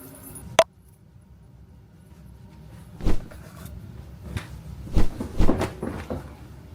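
Indoor handling noises: a sharp click about half a second in, then a series of knocks and thumps in the second half, like a cupboard or door being handled.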